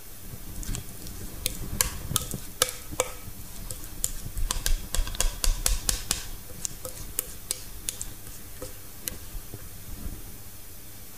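Metal spoon scraping and clinking against a mixing bowl as a cheese-and-egg filling is scooped out, a run of quick irregular clicks and taps that is busiest around the middle.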